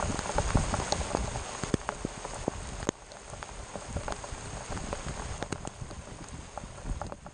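Heavy cloudburst rain pouring onto the sea surface and the boat, with many sharp ticks of drops striking close to the microphone. It eases slightly about three seconds in.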